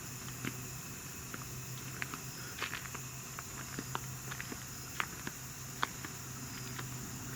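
Footsteps crunching irregularly on gravel and debris, as light scattered clicks, over a steady low hum and a high hiss.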